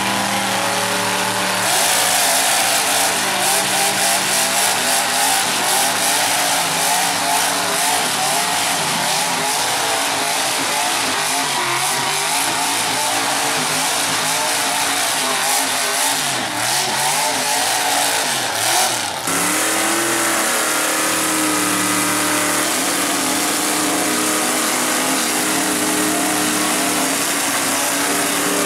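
Lifted Ford F250 mega mud truck's big-block engine revving hard, the pitch rising and falling again and again. About two-thirds of the way in the sound cuts to another mega truck's engine running at high revs, steadier in pitch.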